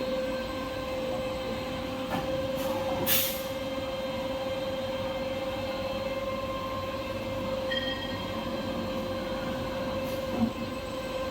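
Paper-converting machinery running steadily, a constant hum with a strong whine. There is a short hiss about three seconds in and a couple of brief knocks.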